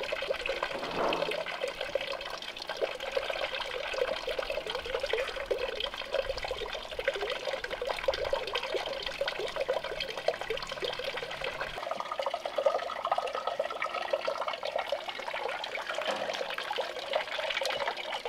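Water running steadily from a pipe into a wooden trough, with small splashes and dribbles as a wet puppy is washed by hand under it.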